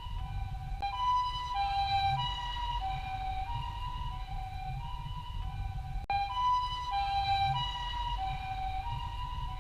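Japanese ambulance two-tone siren, alternating a high and a low note about every half second (the "pee-po" pattern), over a low rumble. It breaks off abruptly twice, about a second in and about six seconds in, each time resuming louder for a second or so.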